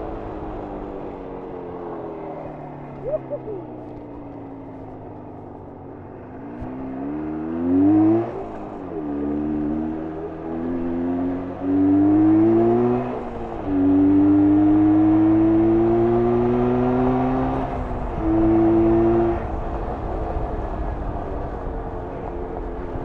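1994 Jawa 350 (type 638) two-stroke parallel-twin motorcycle engine being ridden. It winds down as the throttle is rolled off for about six seconds. Then it revs and accelerates hard through several upshifts, the pitch dropping at each gear change, and eases off again a few seconds before the end.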